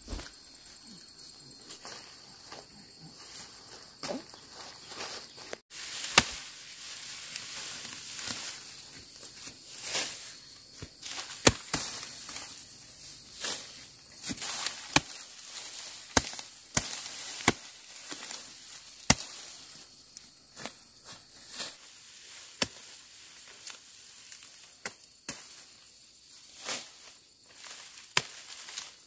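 Machete chopping and slashing through grass stalks at ground level in sharp, irregular strikes, roughly one a second, starting about six seconds in. Insects drone steadily in the background.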